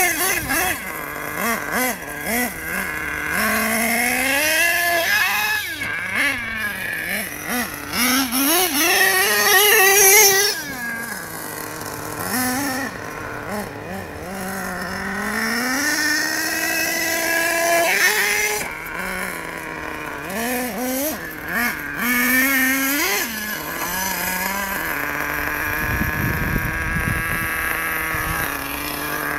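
Radio-controlled off-road monster truck's small nitro engine revving up and down as it drives and jumps, its high pitch rising and falling over and over with the throttle.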